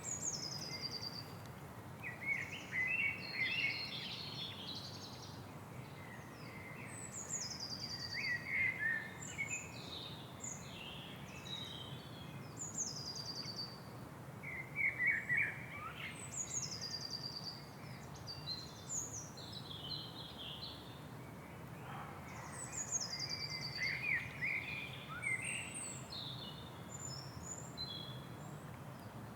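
Several birds calling and chirping over a steady low background hum of city noise. The calls come in short bursts throughout, many of them quick high notes that slide down in pitch.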